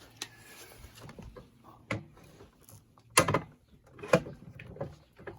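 Several knocks and clatters of the petrol lawn mower's stop/inhibit control and its parts being handled, the loudest two near the middle, as the run/stop switch is closed for a continuity test.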